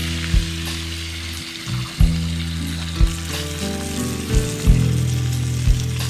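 Diced onion sizzling as it fries in a small pan over a campfire, stirred with a spoon. Background music with low thumps about once a second and held low notes plays over it.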